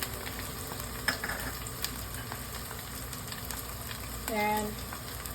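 Onions and ginger-garlic paste frying in oil with chili powder just added, a steady sizzle while the spices are stirred in, with a few clicks of the stirring utensil against the pan.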